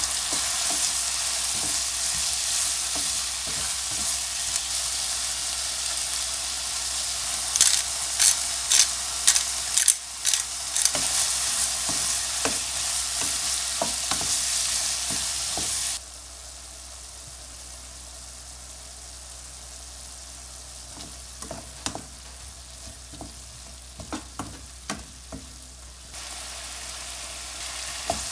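Lamb heart, kidney and onion pieces sizzling as they fry in a frying pan, stirred with a wooden spatula that knocks against the pan several times in quick succession around the middle of the first half. About halfway through the sizzle drops suddenly to a much quieter level with a few more scrapes and knocks, and picks up again near the end.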